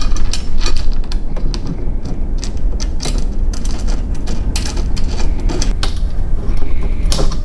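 Scattered knocks and clicks of metal parts being handled, over a steady low rumble.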